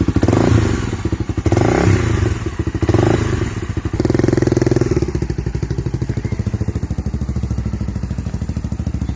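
Honda XRE 300's single-cylinder engine running through a loud aftermarket sport exhaust: the throttle is blipped several times in the first four seconds, then the engine settles to a steady idle.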